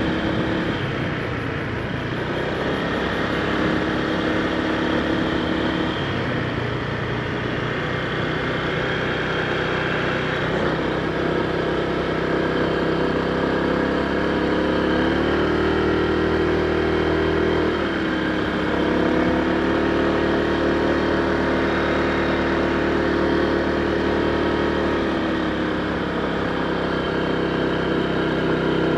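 Honda PCX160 scooter's single-cylinder engine running while riding, its pitch stepping up and down a few times as the throttle changes, over a steady rush of wind and road noise.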